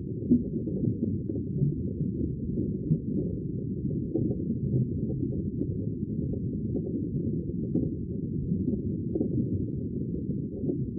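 Steady, deep, muffled wash of sea water, all low rumble with no high splash or hiss, and no distinct wave crashes.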